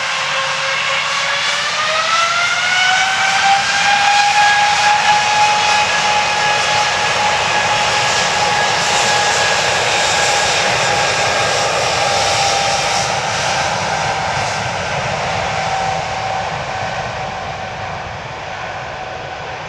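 Boeing 777 jet engines spooling up to takeoff power, a whine rising in pitch over the first few seconds, then a steady loud roar with the whine held, fading slowly near the end as the airliner moves away.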